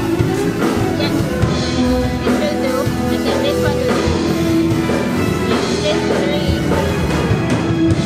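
Rock band music with a singer.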